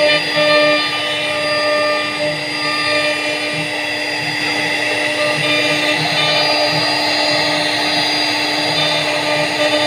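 CNC router spindle running with a steady whine while its bit cuts into a wooden door panel, the cutting noise growing thicker about halfway in.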